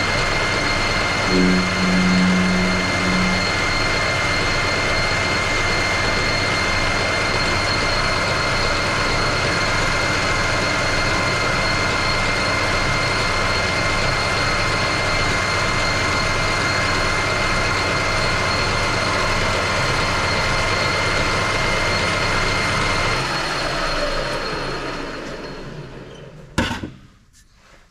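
Metal lathe running at high revs on a finishing cut, the tool turning a metal bar held in a four-jaw chuck, with a steady machine whine and hum. About 23 seconds in the lathe is switched off and spins down with its pitch falling, and a single sharp clunk follows near the end.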